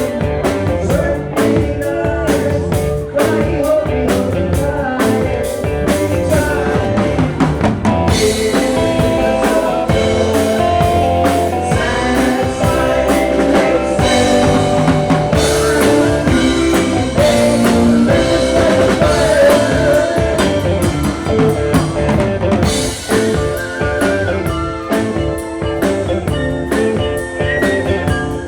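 Rock band music with a drum kit, guitar and singing, playing throughout with a steady beat.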